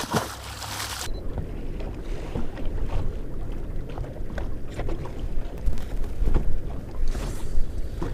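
A splash at the start as the released bonita is tossed back into the water, then water slapping and lapping against the boat's hull with wind buffeting the microphone, and a second, smaller splash near the end.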